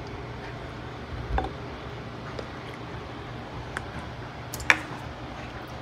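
Kitchen handling noises: a soft thump about a second and a half in and a sharp click near the end, with a few faint ticks, over a steady low hum.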